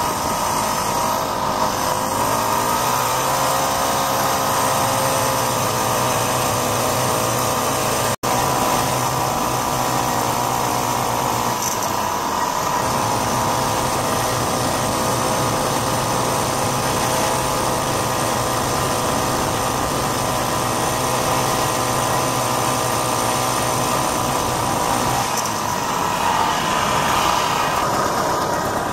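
1967 Ski-Doo Olympique's 250cc single-cylinder two-stroke engine running on the trail, the steady note climbing in pitch about three seconds in as the sled picks up speed. The pitch changes again near the end as the sled slows.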